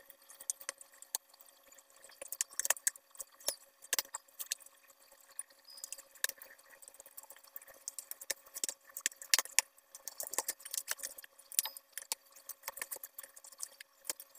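Hands kneading a stiff flour dough in a steel bowl: irregular clicks, taps and light metallic clinks as knuckles and dough press and knock against the bowl.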